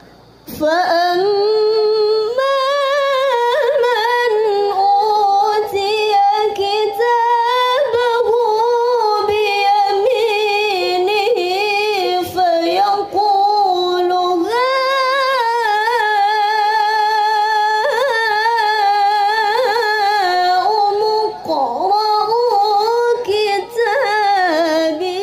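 A young woman's voice reciting the Quran in the melodic tilawah style into a handheld microphone. She holds long, ornamented phrases with short breaths between them, and no drums play along.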